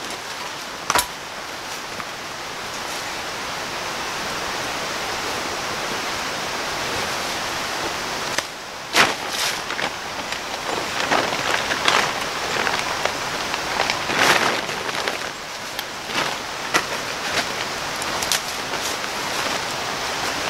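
Plastic camouflage tarp rustling and crinkling steadily as it is pulled down and folded up, with sharp crackles scattered through, more often in the second half.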